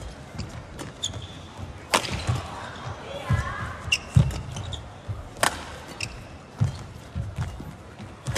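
Badminton rally: rackets striking the shuttlecock with sharp cracks, the two loudest about 2 and 5.5 seconds in, amid short squeaks of shoes on the court mat and thuds of footfalls.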